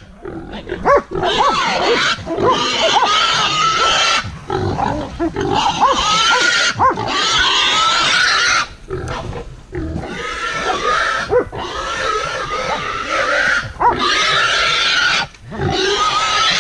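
Wild boar squealing loudly while seized by hunting dogs: long, harsh distress screams lasting several seconds each, broken by short pauses.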